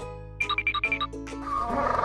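Children's background music with short chiming notes, then an animal call starting about one and a half seconds in over the music, rough and wavering in pitch.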